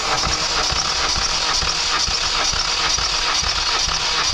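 Kia Rio 1.4-litre G4FA four-cylinder engine turned over by its starter motor with the spark plugs out, for a compression test on the third cylinder. The cranking is steady and even, with a rhythmic beat as the cylinders come up on compression. The gauge builds to about 13 kg/cm², in line with the other cylinders.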